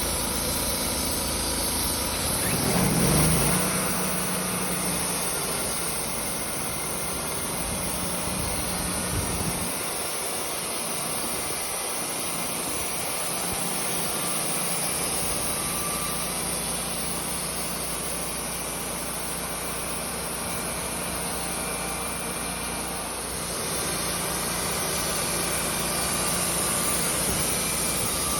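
Wood-Mizer LT28 band sawmill's engine running. It revs up with a rising pitch about three seconds in, then holds a steady hum with a hiss over it.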